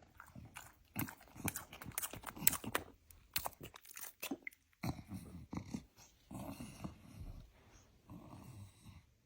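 A dog chewing something crunchy: a quick, irregular run of quiet crisp crunches, then softer chewing sounds.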